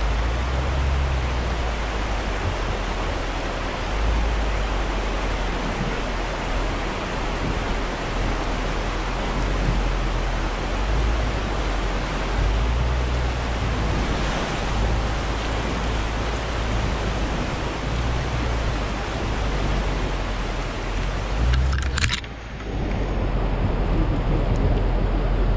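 Steady rushing noise of a shallow river, with the low rumble of an SUV's engine underneath as it drives through the creek bed. A brief click and a short dip in level about 22 seconds in.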